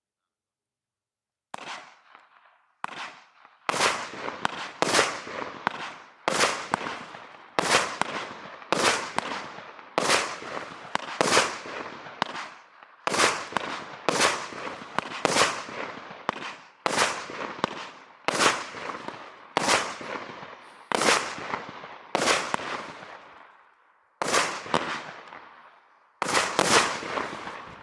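A 19-shot fireworks cake with 25 mm tubes firing its shots one after another, starting about a second and a half in. Each shot is a sharp bang that trails off over about a second, with roughly one shot a second.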